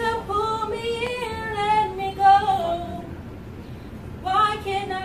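A teenage girl singing solo: a phrase of held notes with vibrato, a pause of about a second for breath, then the next phrase beginning near the end.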